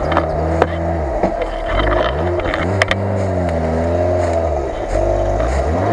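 Lada Niva 4x4's engine revving up and down under load in about five swells as it climbs a steep dirt slope. A few sharp clicks are heard over the engine.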